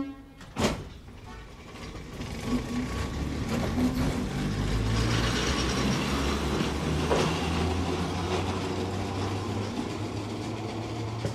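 Electric railcar pulling away from a station: a sharp knock under a second in, then the train's running noise starts about two seconds in and builds to a steady low hum with wheel and rail noise.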